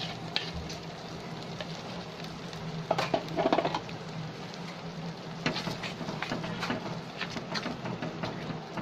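A spoon stirring and scraping thick ground toor dal paste around a pan over the heat, in uneven strokes with a louder run of scrapes about three seconds in. A steady low hum runs underneath.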